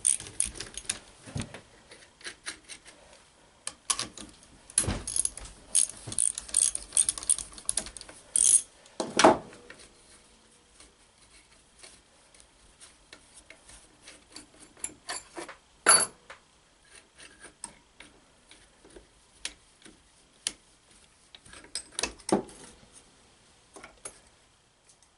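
A ratchet clicks in quick runs while the bolts holding the back end of a Chevy starter motor are loosened. Further on come scattered metal clinks and a few sharper knocks as the end cover and parts are handled.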